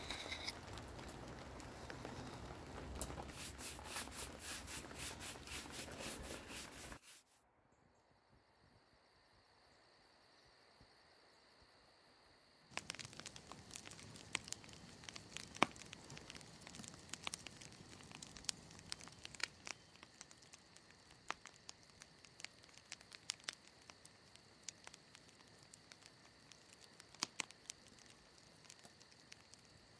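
For the first several seconds, a denser noise with a quick run of rhythmic strokes. Then, after a quiet gap, a wood fire burning in a small portable metal wood stove, crackling with irregular sharp pops.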